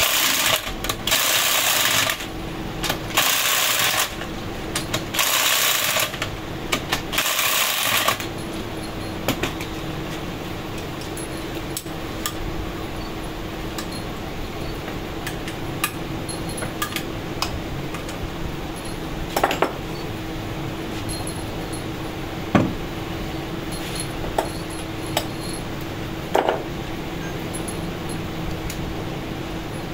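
A handheld electric screwdriver runs in four short bursts of about a second each, driving bolts into a tractor hydraulic gear pump held in a vise. After that a steady machine hum goes on, with scattered metal clinks as the pump and tools are handled.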